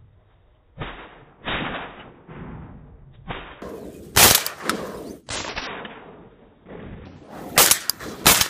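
Several shotgun shots at ducks, each a sharp bang with a short tail. A loud one comes about four seconds in and two come close together near the end.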